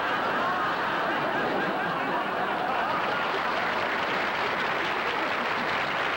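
Studio audience laughing and applauding. The laughter is strongest in the first second or so, over an even wash of clapping.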